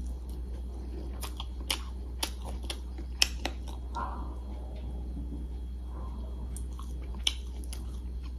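A person chewing a mouthful of rice eaten by hand, with sharp wet mouth clicks and smacks scattered through, over a steady low hum.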